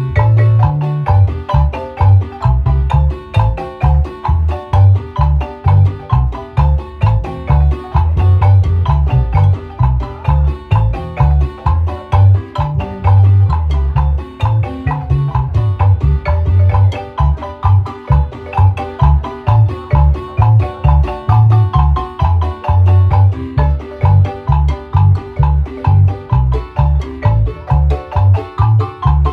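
Guatemalan marimba music: rapid runs of struck wooden-bar notes over a steady bass line that pulses about twice a second.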